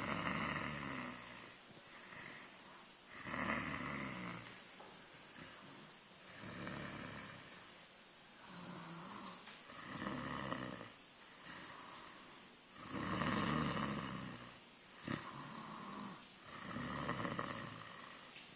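Snoring in a steady rhythm: a loud snore about every three seconds, six in all, with softer breaths in between.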